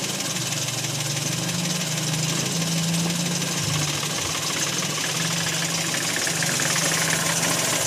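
Daihatsu Ayla engine idling with a steady low hum. The engine has been damaged by running out of engine oil.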